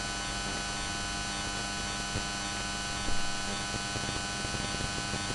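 Steady electrical hum with hiss, made up of many fixed tones, with a slight swell a little after three seconds.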